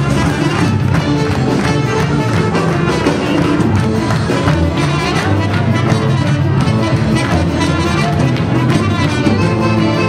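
Live dance band playing music.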